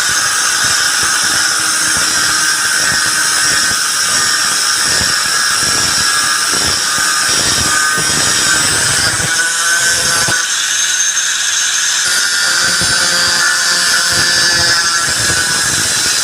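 A high-speed power tool, most likely a grinder, running against metal: a steady high whine over a gritty crackle. The crackle thins about ten seconds in as the load eases.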